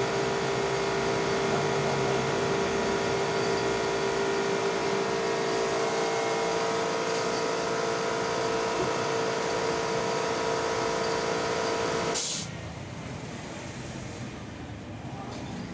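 A machine motor running with a steady hum and whine, which cuts off suddenly with a click about twelve seconds in, leaving a quieter hiss.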